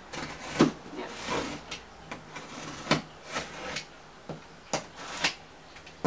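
A cardboard shipping box being handled while its packing tape is cut with a blade: a handful of short scrapes and knocks on the cardboard, spread out with quieter rubbing between them.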